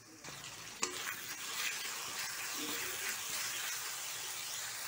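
Onions and ginger-garlic paste sizzling steadily in hot mustard oil in a kadhai while being stirred with a spatula, with one sharp click of the spatula against the pan about a second in.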